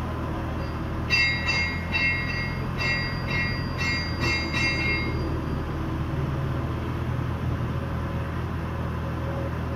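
Small truck's engine running steadily, driving the hydraulics of a Unic mini crane as it handles a load. About a second in, a quick run of high, evenly pulsed beeps, two or three a second, sounds for some four seconds and then stops.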